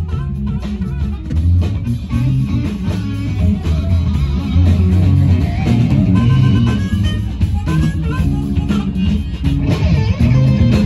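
Band music: guitar and bass guitar playing with drums, loud and continuous.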